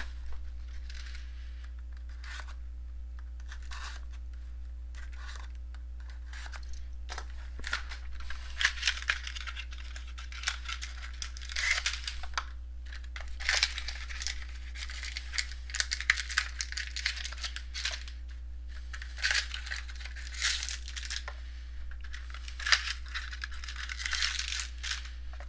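Wrapping being torn and crumpled as a sealed box of trading cards is opened: light handling clicks at first, then repeated irregular crinkling and tearing through the second half.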